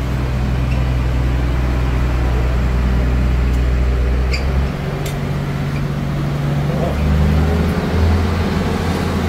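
A vehicle engine idling in the street: a steady low hum that changes about halfway through, with street noise and voices behind it.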